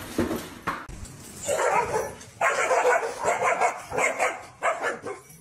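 Dogs barking and yipping in a quick run of about five loud barks over the second half, after a few short knocks about a second in.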